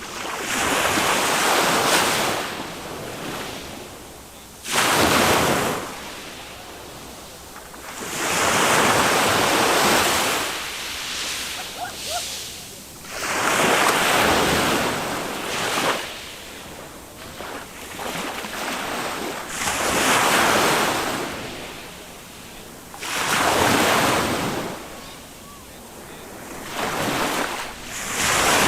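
Small waves of a calm sea breaking on a sandy beach, one after another: each swells into a hiss and washes back, about every four to six seconds. Some wind buffets the microphone.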